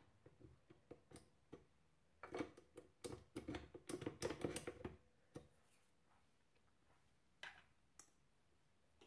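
Light clicks and metallic clatter as hands handle a stand mixer's flat beater against its stainless steel bowl. The clatter is densest from about two to five seconds in, with a few single clicks after.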